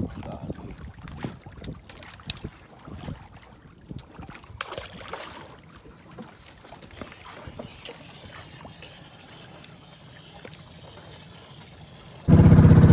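Sea water lapping and splashing against a wooden outrigger boat, with scattered small knocks and splashes as a line is hauled in by hand over the side. Near the end a loud, steady motorboat engine cuts in abruptly.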